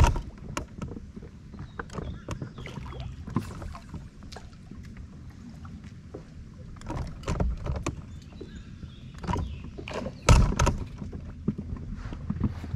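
Scattered knocks and clatter of gear on a fishing boat over a low steady hum, with one loud thump about ten seconds in.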